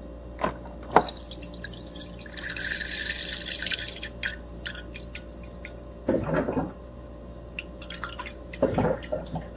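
Office water cooler dispensing: two sharp clicks, then water pouring into a cup for about two seconds, followed by two short gurgles as air bubbles up through the bottle. A steady low hum runs underneath.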